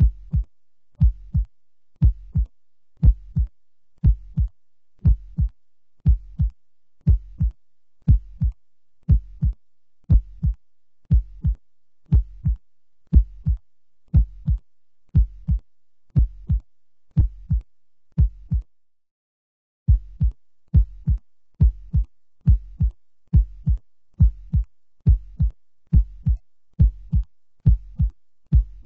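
Heartbeat sound effect: deep double thumps, about one pair a second, in a steady even rhythm. The beat cuts to silence for about a second some two-thirds of the way through, then carries on.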